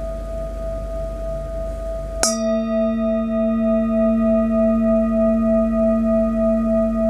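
Metal singing bowl ringing, struck again with a wooden mallet about two seconds in, then sustaining a deep hum with several higher tones above it, one of them pulsing in a slow, wavering beat.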